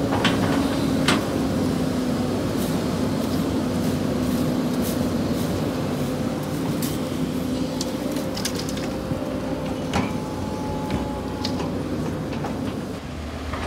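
Sany excavator's diesel engine running at a steady speed, with scattered sharp clicks and scrapes of shovels spreading sand in a steel dump-truck bed. The engine hum drops away near the end.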